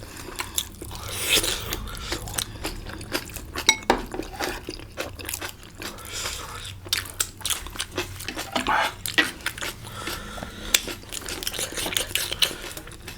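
Close-up eating of momo dumplings: biting and chewing, with many small mouth clicks and smacks.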